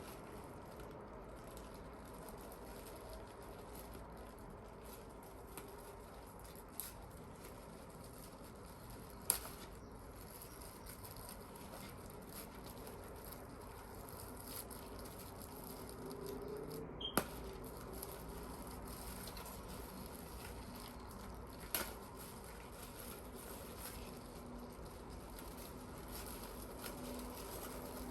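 Faint rustling and crackling of a plastic wrapper and damp sphagnum moss being pulled off a plant's roots by hand, with a few sharp clicks.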